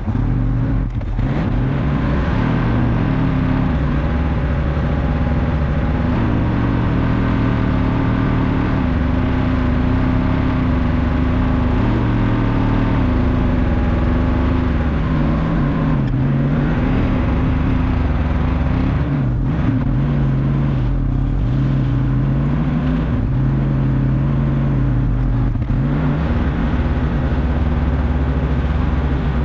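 A motor vehicle engine running steadily while driving, its pitch shifting up and down a few times.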